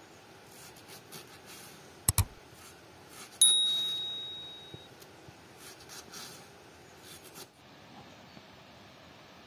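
Kitchen knife slicing through red cabbage onto a wooden cutting board, a steady series of crisp cuts that stop about three-quarters of the way through. About two seconds in there is a quick double click, then a loud bell ding that rings out and fades over a second or so: the sound effect of a subscribe-button overlay.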